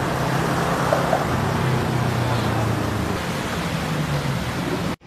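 Steady outdoor noise at a beach: an even hiss with a low engine-like hum, cutting off suddenly near the end.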